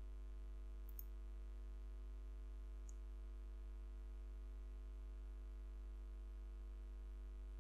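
Steady electrical mains hum on the recording, with a couple of faint ticks about one and three seconds in.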